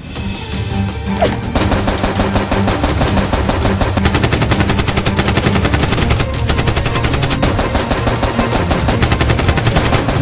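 Rapid automatic-gunfire sound effect dubbed over the toy blasters: a continuous stream of shots that starts about a second in, over background music.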